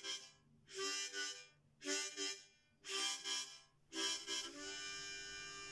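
Instrumental music on a reedy wind instrument: short chords about once a second, each sounded in two quick puffs, then one long held chord near the end.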